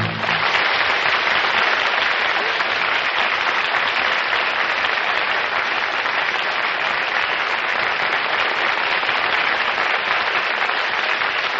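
Studio audience applauding steadily as a sung number ends.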